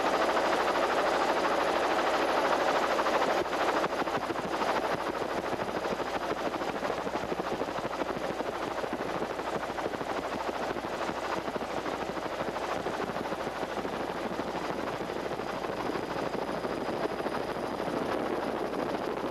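Helicopter engine and rotor noise heard from on board: a steady, dense chopping drone, a little quieter from about three and a half seconds in.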